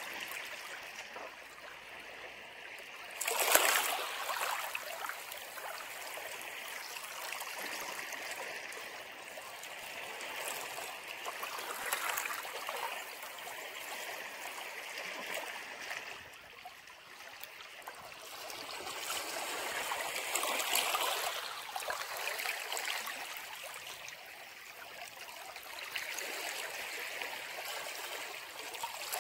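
Sea waves breaking on a rocky shore and draining back between the rocks as a steady wash, with the loudest wave surging about three seconds in and further swells rising every several seconds.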